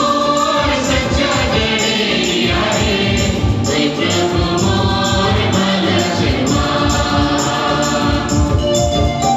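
A choir singing a hymn over instrumental accompaniment with a steady beat.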